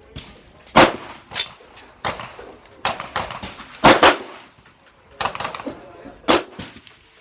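Gunshots from a 7.62×39 AR-15 pistol: about five sharp reports at irregular intervals, two of them in quick succession about midway.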